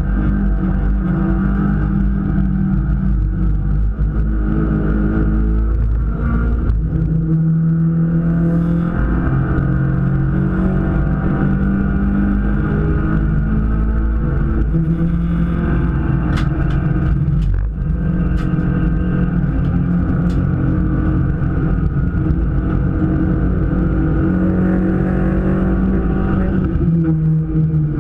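Race car engine heard from inside the cockpit, running hard on track, its pitch climbing and dropping repeatedly with throttle and gear changes. A few sharp clicks come a little past halfway.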